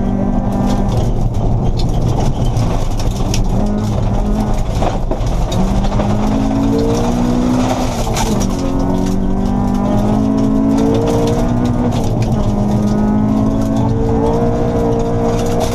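Honda Civic rally car's engine heard from inside the cabin, revving through the gears on a gravel stage: its pitch climbs, drops at each gear change and dips briefly about halfway through. Under it runs a steady roar of tyres on gravel with small stones clicking against the car.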